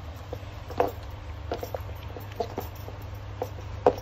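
Knocks and taps of metallic platform stiletto sandals against a wooden floor and each other as the second sandal is handled and put on. There are a loud knock about a second in, a cluster of lighter taps in the middle, and another loud knock near the end, over a steady low hum.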